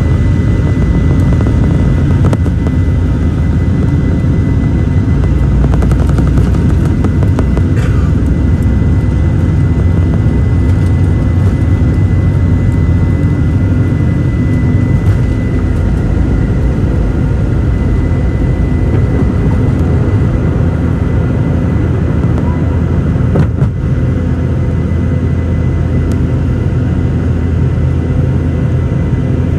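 Inside the cabin of a Boeing 717-200, its rear-mounted Rolls-Royce BR715 turbofans run at takeoff power through the takeoff roll and liftoff. It is a loud, steady rumble with a high whine held on one pitch. A short knock comes about three-quarters of the way through.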